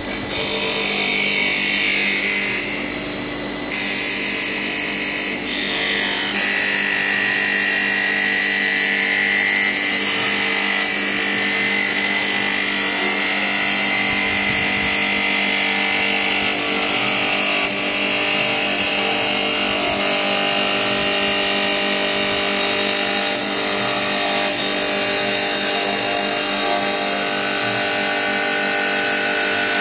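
CNC wood lathe running, its cutter shaving a spinning wooden blank into a beaded spindle: a steady machine whine over a dense hiss of cutting.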